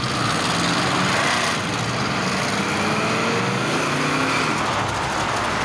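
Car engines in slow street traffic, with a silver Chrysler A-body coupe passing close by, its engine note rising a couple of times as it accelerates.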